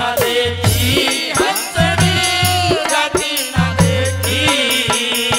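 Live Haryanvi ragni music: drum strokes over a repeating deep bass line, with a bending melody line on top.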